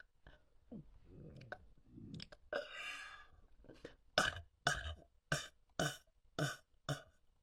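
A person burping: a few quieter sounds and one longer burp early on, then a quick run of six short, loud burps about half a second apart.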